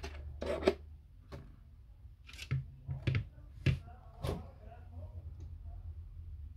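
Tools and small parts being handled during disassembly: about seven short clicks and scrapes in the first four and a half seconds, over a steady low hum.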